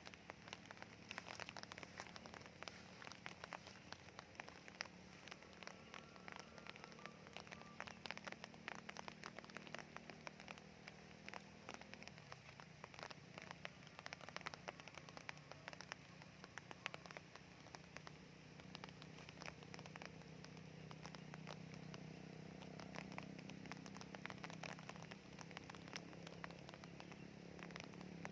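Soft rain: many small, irregular raindrop ticks pattering faintly on surfaces, over a steady low hum that grows a little louder in the second half.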